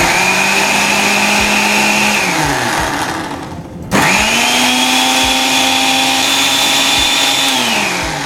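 Countertop jug blender motor churning a thick smoothie: it spins up and runs at low speed for about two seconds, then winds down. About four seconds in it is switched on again at a higher speed, runs steadily and winds down near the end.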